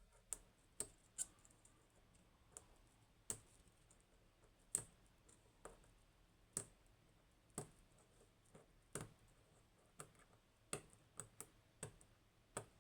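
Faint, irregular small clicks and taps, about twenty of them at uneven intervals, as from small hard parts being handled.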